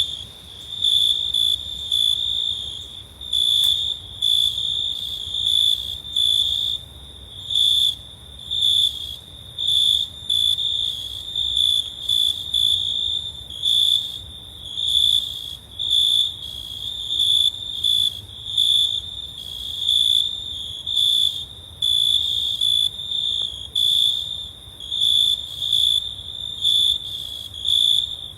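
Crickets chirping: a loud, high-pitched trill that swells and fades in a steady rhythm of about one pulse a second.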